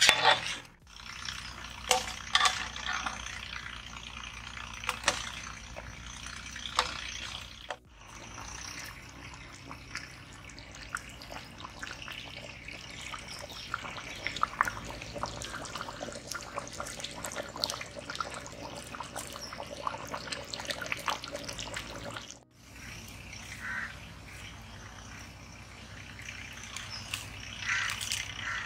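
Thick chicken gravy simmering in a large aluminium pot over a wood fire, bubbling with a steady stream of small pops and plops. Birds chirp faintly in the background.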